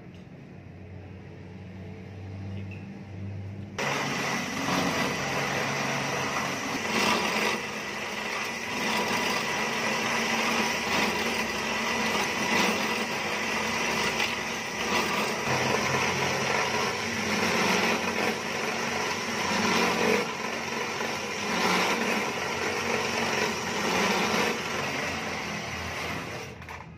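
Pillar drill press running and drilling into a tractor brake shoe. A low hum for the first few seconds, then from about four seconds in a steady motor whine with a harsh cutting noise as the bit works the shoe.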